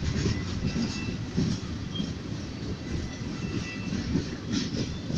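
Ferromex freight train rolling past, a steady rumble of railcars on the track with faint high wheel squeal coming and going.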